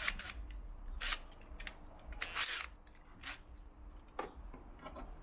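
Scattered sharp clicks and metallic rattles of tool handling as a cordless drill is readied with a bigger bit, with no motor running.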